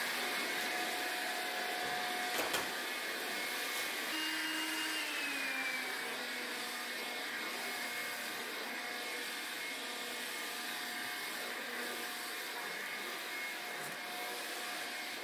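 Makita cordless stick vacuum cleaner running steadily as it is pushed over the floor, its motor whine dropping a little in pitch about four seconds in, with a light knock about two and a half seconds in.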